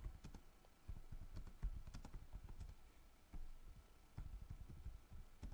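Computer keyboard typing: faint, irregular keystroke clicks as a line of text is typed.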